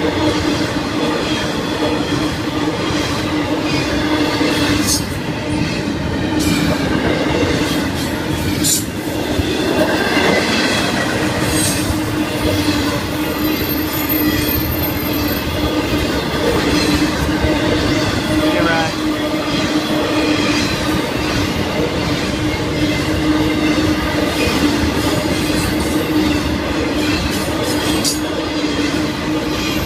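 Florida East Coast Railway freight train rolling steadily past at a grade crossing: continuous rumble of car wheels on the rails, with scattered sharp clicks as the wheels pass over rail joints.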